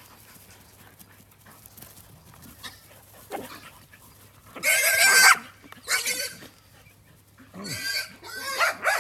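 Farm animals calling: about five loud, high squealing cries, starting about halfway through, each lasting around half a second to a second.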